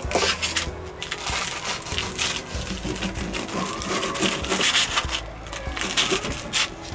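Knife cutting through the crisp Japanese-breadcrumb crust of a deep-fried sandwich, giving a quick run of crunchy crackles.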